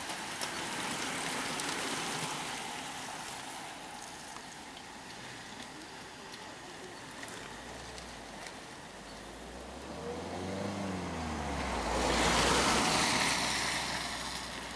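A pack of racing bicycles whirs past with a rush of tyre noise. About eight seconds in, a car's engine is heard rising and falling as the car approaches, and it passes close by with a loud rush of tyre noise near the end.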